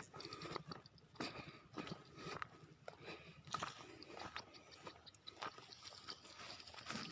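Footsteps crunching on a dirt path, an irregular run of soft crunches and scrapes about every half second.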